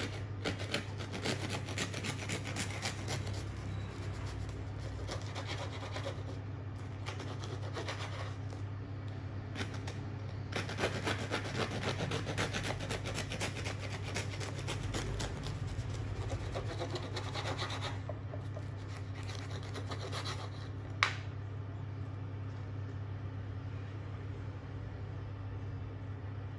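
Serrated bread knife sawing back and forth through the crisp crust of a round loaf on a wooden board, a rapid rasping scrape in two long spells. About three-quarters of the way through there is a single sharp click, over a steady low hum.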